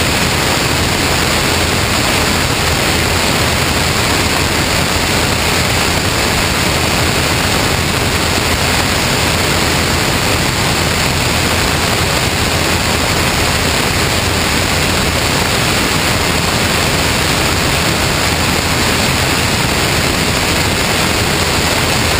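Steady, loud rush of airflow over a camera mounted outside, under the wing of a Cessna 162 Skycatcher in flight, with no change in level.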